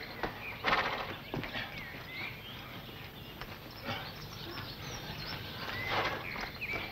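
A horse shifting and stepping, with scattered hoof clops and two short noisy bursts, about a second in and near the end, over faint bird chirps.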